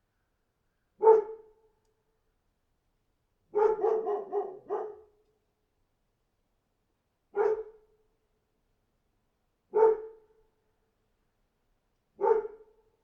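A dog barking: one bark, then a quick run of about four barks, then three single barks spaced a couple of seconds apart, with silence between.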